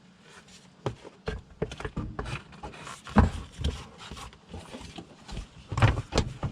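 Irregular knocks and clicks of a plastic radiator fan shroud being pushed and worked into place, with the loudest knocks about three seconds in and near the end.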